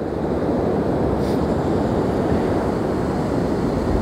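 Strong wind rushing over the microphone, with stormy sea surf underneath: a steady low rush without a break.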